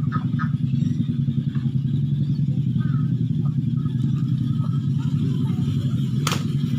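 A small engine running at a steady idle, with one sharp click about six seconds in.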